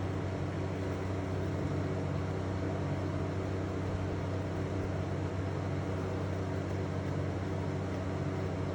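A steady, unchanging low mechanical hum with a buzzy, pitched edge, like a running motor or appliance. No distinct tool clicks or knocks stand out.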